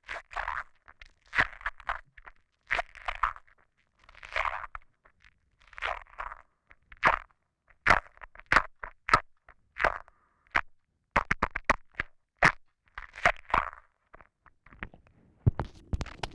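Close-miked breathing and wet mouth noises picked up by a Deity W.Lav Pro omnidirectional lavalier microphone: a string of short breaths with sharp saliva clicks and lip smacks between them, the clicks coming in a quick run past the middle.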